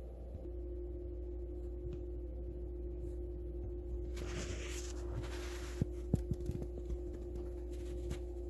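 Steady low machine hum with a steady tone that enters about half a second in. There is a brief hiss about four seconds in, then a few light clicks.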